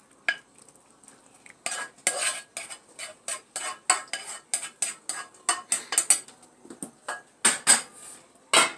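Spoon scraping and knocking against a non-stick frying pan as cooked spinach is scraped out onto a plate. It is a quick, uneven run of scrapes and taps starting about two seconds in, loudest near the end.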